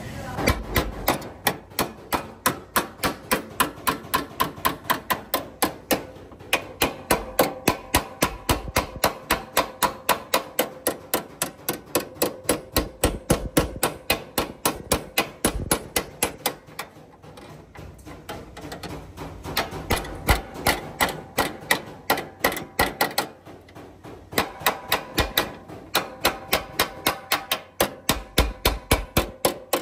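Hammer beating sheet steel in fast, even blows, about three or four a second, each with a metallic ring, with a couple of short breaks. This is panel beating: straightening the crash-damaged Mazda Carol's body.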